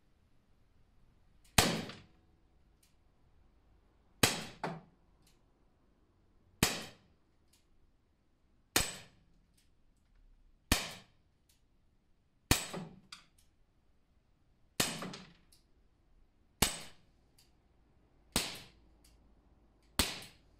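Umarex SA10 CO2 blowback air pistol firing ten single shots, about two seconds apart, each a sharp crack. A few shots are followed by a quieter knock of the pellet striking the hanging spent CO2 cylinders or the target box.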